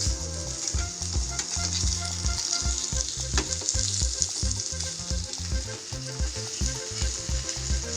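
Chicken kebabs shallow-frying in oil in a kadai: a steady crackling sizzle. Underneath runs a low, regular pulsing beat.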